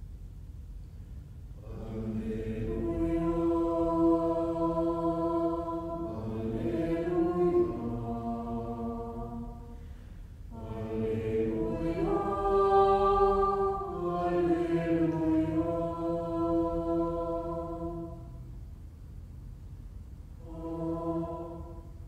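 Four-part SATB choir singing slow, sustained chords on "Alleluia". The chords swell and fade in two long phrases, then one short, quieter chord near the end.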